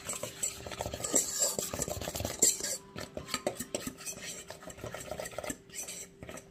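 A metal fork stirring flour and dry spices in a stainless steel bowl, with quick scraping strokes and light clinks against the bowl, busiest in the first three seconds.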